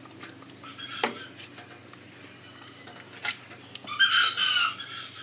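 A few sharp clicks and knocks, then a short bird call lasting under a second, about four seconds in, which is the loudest sound.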